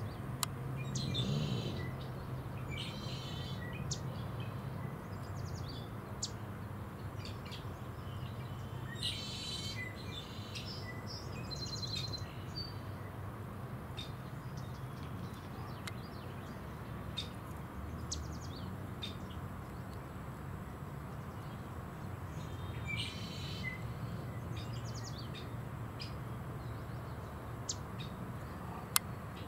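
Small birds chirping and trilling in scattered bursts over a steady low background hum, with a sharp click near the end.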